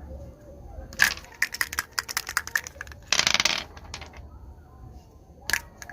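Plastic Ludo dice clattering, with quick irregular clicks and rattles, a short rush about halfway through and more clicks near the end.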